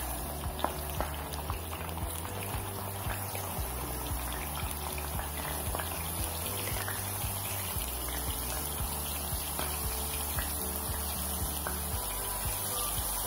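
Ground garlic paste sizzling in hot oil in a frying pan: a steady hiss with scattered small crackles. Background music with low bass notes plays underneath.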